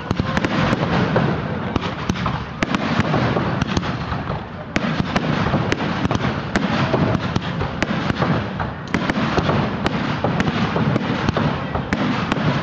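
Aerial fireworks display: a dense, continuous barrage of shell bursts and crackling, with many sharp bangs in quick succession.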